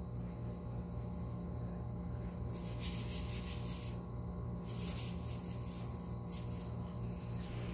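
Hands rubbing foam cleanser over the face: quick soft rubbing strokes begin about two and a half seconds in, pause briefly, then resume, over a steady low hum.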